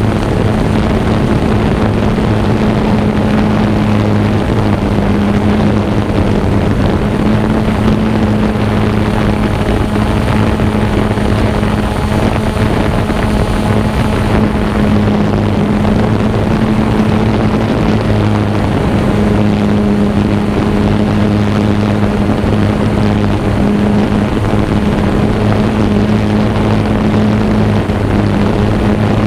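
Xiro Explorer quadcopter's motors and propellers humming steadily in flight, heard from the GoPro mounted on the drone, with a constant low drone under a rushing noise.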